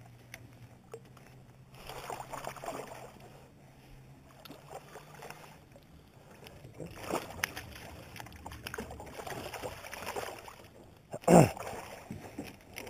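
Hooked smallmouth bass splashing at the surface beside the boat in several irregular bursts, with one loud splash near the end.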